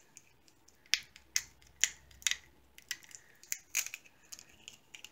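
Crinkling clear plastic packaging and tape being picked at by fingers: a run of short, sharp crackles about every half second.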